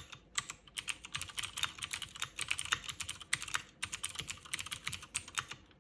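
Cherry MX Board 3.0S mechanical keyboard with Cherry MX Blue clicky switches being typed on quickly, a dense run of sharp key clicks with two brief pauses, stopping just before the end. The iPhone recording makes the clicks sound sharper than they are in the room.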